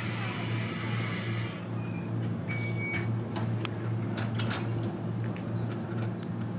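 Nankai 21000-series electric train standing at the platform with a steady, pulsing low hum from its onboard equipment. A hiss cuts off about a second and a half in, and a few clicks and knocks follow.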